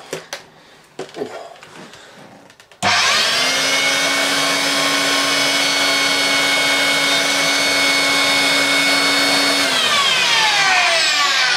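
Electrolux Twin Turbo upright vacuum cleaner switched on about three seconds in, its motor and brush roll running with a steady whine. About ten seconds in it is switched off and winds down, the whine falling in pitch. The owner puts a bad bearing in this motor. Light handling clicks come before it starts.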